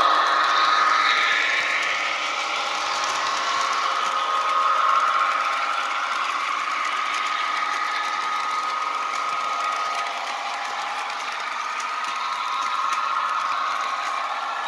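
Model freight train running along the track: a steady motor whine with the rattle of wheels on the rails. It is loudest at the start, as the locomotive passes close by, and carries on evenly as the cars roll past.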